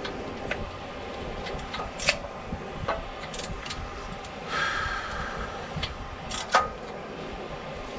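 Hand tools working on a stuck exhaust manifold bolt: scattered sharp metallic clicks and knocks, a few seconds apart, with a short grating noise about halfway through and the loudest knock near the end.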